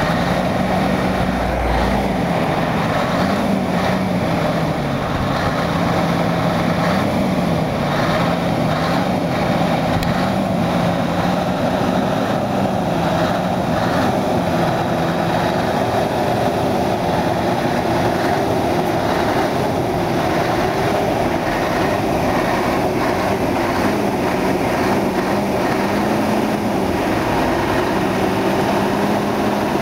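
Scania R620's V8 diesel running at low revs, its exhaust note rising and falling a little over and over under light throttle.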